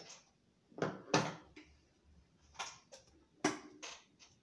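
Fabric strips and tools being handled at a sewing machine: a string of short, irregular rustles and soft knocks, with no machine running.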